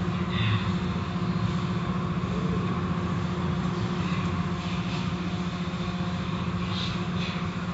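Automatic car wash running as a foam-soaked cloth-strip curtain passes over a car: a steady machine hum under a constant hiss of water and foam.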